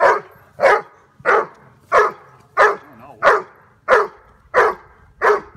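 Doberman barking in a steady, even rhythm, about three barks every two seconds, each bark short and loud.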